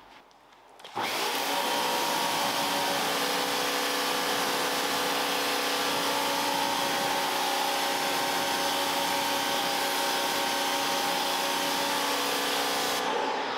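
Kärcher vacuum cleaner switched on about a second in and running steadily with a constant motor whine, then switched off near the end, its motor winding down.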